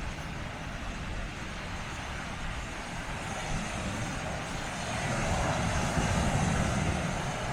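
Sea waves washing against the rocky shore: a steady rushing that swells and grows louder about five seconds in.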